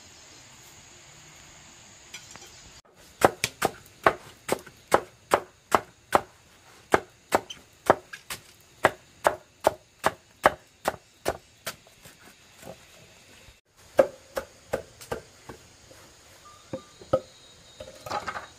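Large knife chopping taro stalks on a wooden board: a steady run of sharp strikes, about two to three a second, starting about three seconds in. After a short break, a few more strikes come, slower and less even.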